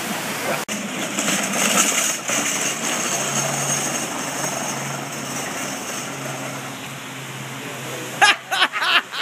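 Steady hiss of rain falling on wet pavement, with a low steady hum in the middle. Near the end a person breaks into laughter in short rhythmic bursts.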